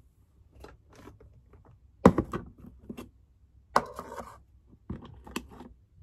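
A clear plastic container full of small skincare bottles and tubes set down on a desk: a sharp knock and rattle about two seconds in, with lighter clicks and taps of small objects being handled before and after.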